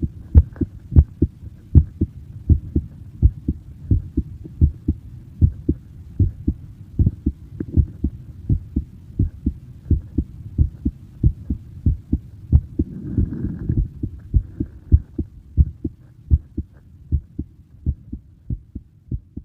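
A person's heartbeat recorded close up: a steady, even run of low thumps. A brief rustle comes in about 13 seconds in, and the beats grow a little softer near the end.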